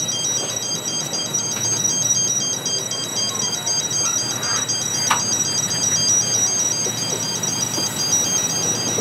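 Level crossing warning alarm warbling steadily between two high tones while empty cement tank wagons rumble slowly across the crossing, with one short sharp clank about five seconds in.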